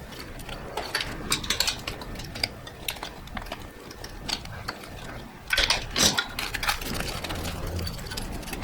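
Irregular clicking and clattering of hand tools and loose parts as fasteners, a wiring harness and fittings are worked off an engine, louder for a moment about five and a half seconds in.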